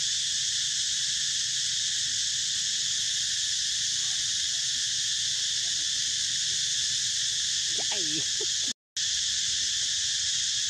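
Steady, loud chorus of insects, a high, even buzzing hiss that never lets up, briefly cutting out to silence near the end.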